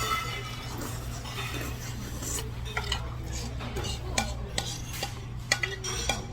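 Metal cutlery clinking and scraping against a dish as food is stirred and mixed, with a few sharp clinks a little past the middle, over a steady low hum.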